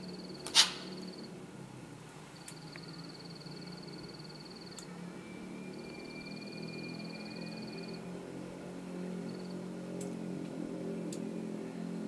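Rainforest ambience: a high, rapidly pulsing trill repeats in bursts of two to three seconds over a steady low hum. A single sharp, loud click comes about half a second in, with a few faint ticks later.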